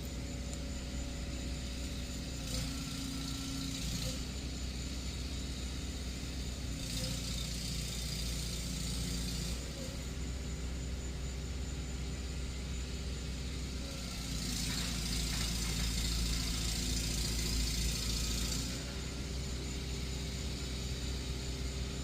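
Steady low mechanical rumble, like a running engine, with three stretches of hiss of a few seconds each; the hiss about two-thirds of the way through is the loudest.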